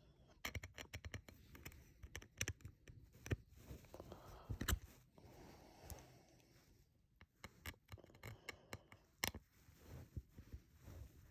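Small screwdriver working at a tight screw in a metal Ridge Wallet plate: irregular faint clicks and short scrapes of the bit against the screw head and metal as the screw refuses to budge.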